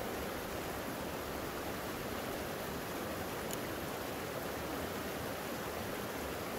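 Creek water rushing, a steady, even flow.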